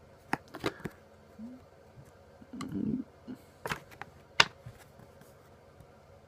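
Trading cards being handled and set down: a handful of sharp clicks and taps, the loudest about four and a half seconds in.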